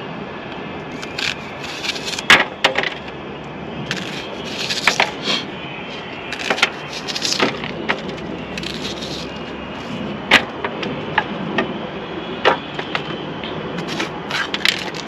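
Chef's knife slicing through an onion held in the hand, each cut a short crisp snap, coming at irregular intervals; near the end the knife starts cutting into a green bell pepper.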